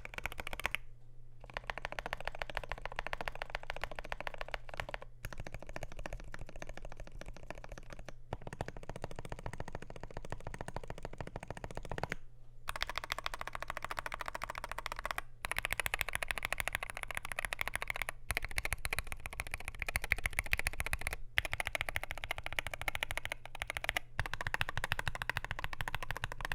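Continuous fast typing on a Wooting 60HE keyboard with lubed Gateron Lekker Hall-effect switches and PBT keycaps on an aluminium plate: a dense clatter of keystrokes in bursts, with short pauses every few seconds. About halfway through, the keystrokes turn brighter and a little louder. A steady low hum runs underneath.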